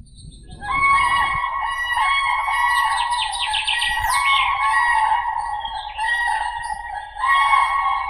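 Common cranes calling, their loud trumpeting calls overlapping without a break. There is a quick run of higher notes about three seconds in, and the calls dip briefly near the end before picking up again.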